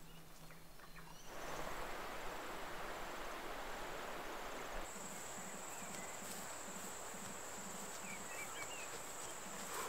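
An insect's steady high-pitched trill that starts about five seconds in and holds, over a steady outdoor hiss.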